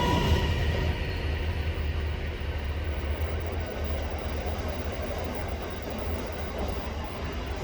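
Train running past on the line: a steady low rumble of wheels on rail with a rushing noise, while a high ringing squeal fades out in the first second.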